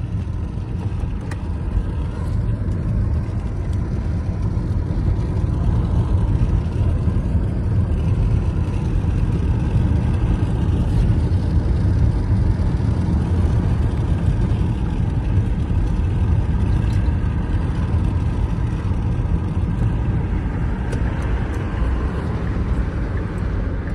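Car driving at speed, heard from inside the cabin: a steady low road-and-engine rumble that grows a little louder a few seconds in.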